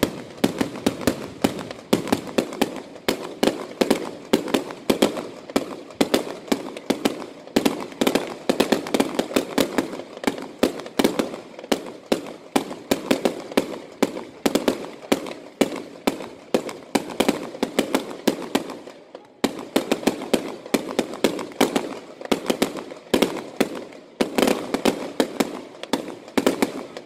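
Fireworks display going off: a rapid, continuous barrage of bangs and crackles, several a second, with a short lull about two-thirds of the way through.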